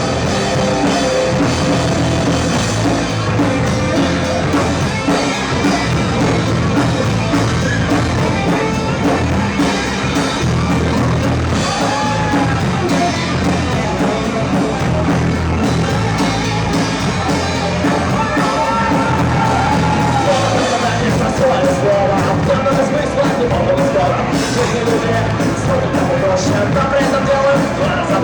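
Live rock band playing loud through a club PA: drum kit and amplified instruments with a sung lead vocal.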